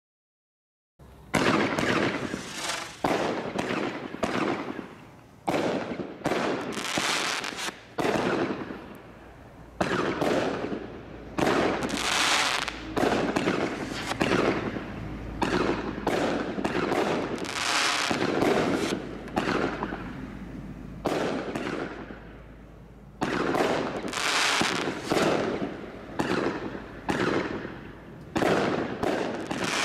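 Bright Star 'Big Ben Countdown' 37-shot firework barrage cake firing comet shots one after another, about one a second. Each is a sudden bang that fades over about a second. It starts about a second in and eases off briefly around two-thirds of the way through.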